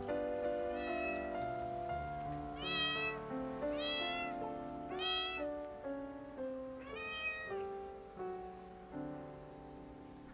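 A deaf white kitten meowing about five times in the first seven seconds, each call rising and then falling in pitch, the first one fainter. Background music with held notes plays underneath.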